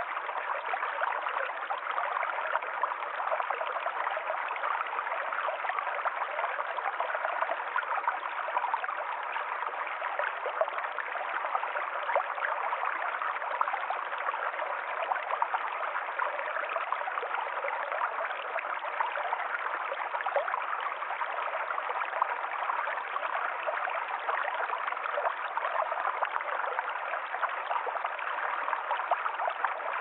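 Forest stream flowing steadily, an even, unbroken rush and trickle of running water.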